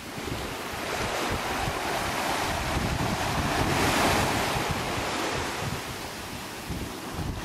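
Small waves breaking and washing up a pebble beach, the surf swelling to its loudest about four seconds in. Wind buffets the microphone with an uneven low rumble.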